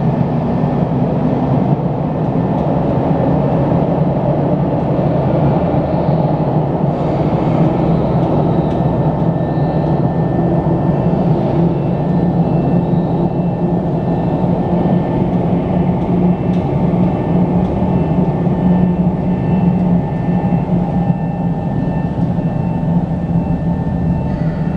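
Steady, loud drone of an underground station's air conditioning. Faint, intermittent high electronic tones sound over it, from the tunnel's train approach warning sounder.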